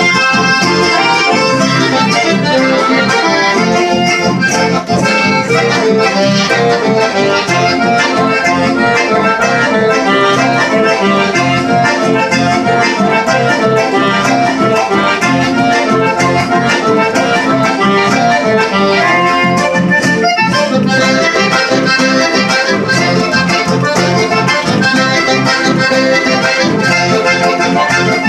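Accordion playing a continuous tune, a steady stream of quick melody notes over chords.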